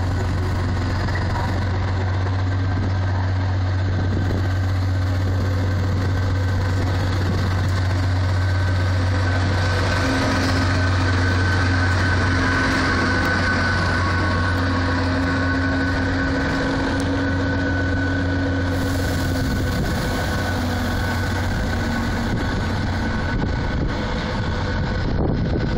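Diesel shunting locomotive's engine running with a steady low hum as the locomotive moves past close by, loudest about halfway through.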